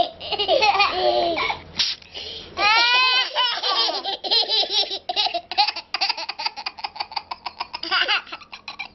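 Two toddlers laughing hard together in repeated fits, with a rising high squeal about three seconds in and quick rapid bursts of giggling after it.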